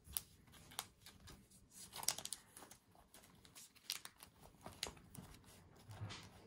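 Faint rustling and light clicks of plastic binder-page pockets as a trading card is slid into a sleeve and the pages are handled, with a few sharper ticks scattered through.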